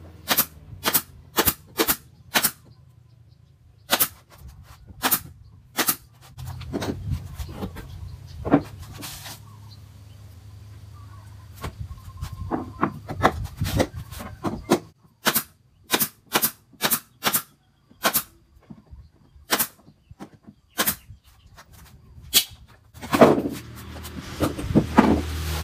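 Pneumatic nail gun driving nails into the wooden panels of a speaker cabinet: sharp shots in quick runs of several, about two a second, with pauses between runs.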